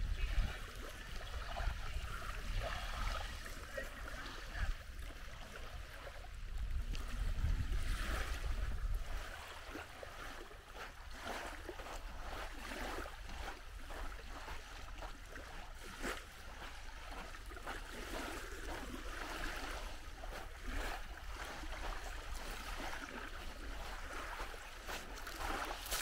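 Small waves lapping at a sandy shore, with wind rumbling on the microphone for the first nine seconds or so. Steps crunch on the sand at walking pace.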